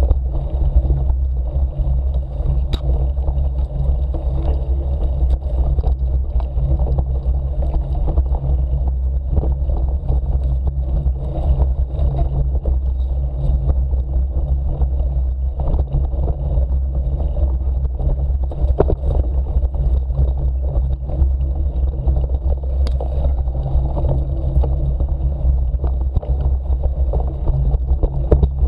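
Mountain bike rolling over a rough grassy dirt track: a steady low rumble from the knobby tyres and the ride, with frequent short clicks and rattles from the bike.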